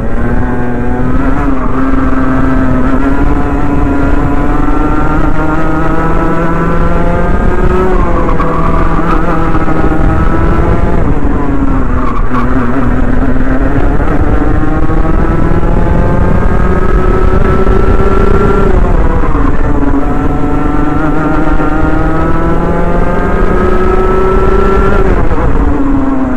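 Rotax Mini Max 125cc single-cylinder two-stroke kart engine heard close up from the driver's helmet, on the power along the straights with its pitch climbing for several seconds, then dropping back as the driver brakes into each corner, about four times.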